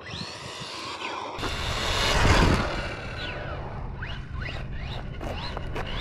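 Carisma M48S 1/8-scale electric RC rally car running on asphalt. Its motor whine rises and falls in pitch with the throttle over tyre and drivetrain noise, coming in suddenly about a second and a half in and loudest just over two seconds in as the car passes close.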